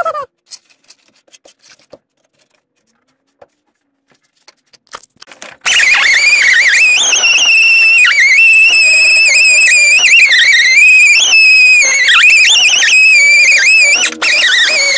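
A drill spinning a wire cup brush against the rusty steel frame rail. It starts about five and a half seconds in: a loud motor whine that wavers up and down in pitch as the brush is pressed and eased off, with a brief break near the end.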